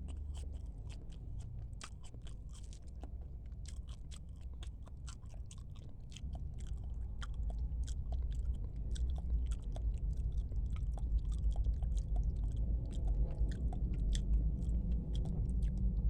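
A person chewing bakso (Indonesian meatball soup), with many small mouth clicks, over a low rumble that grows louder about six seconds in.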